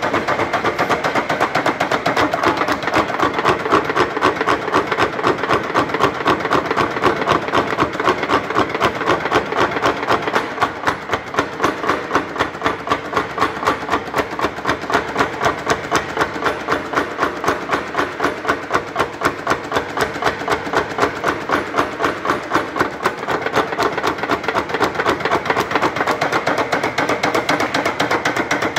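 Ajax mechanical power hammer running, its dies striking in a fast, even rhythm with the motor and drive running underneath. The blows become more distinct, about four a second, after about ten seconds.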